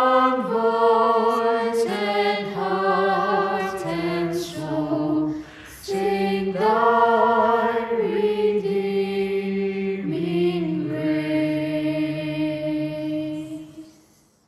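Choir of voices layered from separately recorded singers, singing the final phrase of a hymn in slow held chords. There is a short break about five and a half seconds in, and the last chord dies away near the end.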